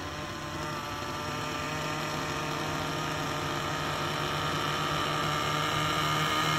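Nitro glow engines of two radio-controlled helicopters, an Align T-Rex 700 Nitro and a Gaui NX7, running on the ground and spooling up toward head speed: a steady, whining hum that slowly grows louder, its pitch edging up.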